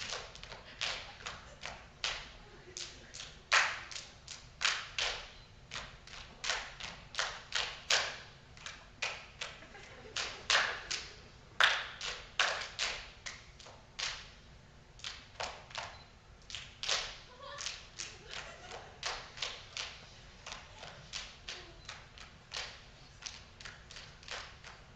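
Body percussion by a group of performers: claps, thigh pats and chest slaps in a fast, tightly synchronised rhythm of sharp strikes, some louder accents among them.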